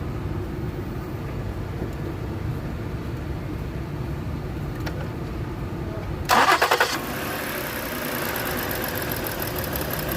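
Ford Explorer engine cranked by the starter about six seconds in, then catching and running with a steady, finely ticking sound. It runs while a test spark plug on one coil's lead stays dark, so that cylinder is misfiring: no spark reaches it, which points to the ignition module or the wiring harness rather than the coil.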